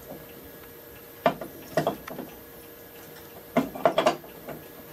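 A handful of sharp wooden knocks and clunks as a workpiece is handled and set in place on the bench: a few about a second in, and a quicker few near the end.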